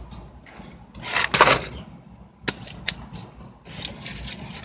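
Eating noises in a car: a short rustle about a second in and two sharp clicks near the middle, over a low steady hum.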